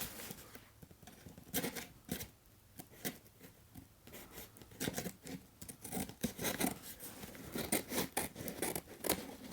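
Scissors cutting through shipping packaging: a run of irregular snips and crackles, the packaging hard to cut.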